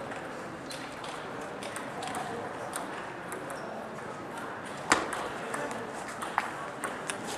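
Table tennis ball being hit: a sharp click about five seconds in as the rally starts, then several more clicks as the ball strikes the bats and table, over a background murmur of voices.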